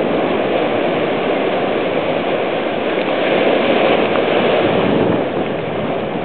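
Ocean surf washing in, a steady rush of water noise that swells a little about three seconds in and eases near the end.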